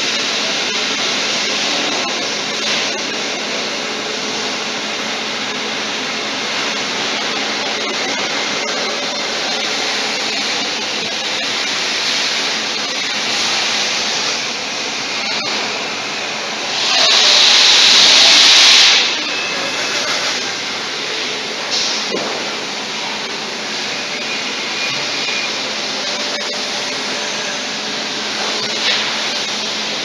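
Three-phase industrial vacuum cleaner running steadily, its motor humming as the floor nozzle sucks up water from the floor. Just past the middle a louder rushing hiss swells for about two seconds, then drops back to the steady running sound.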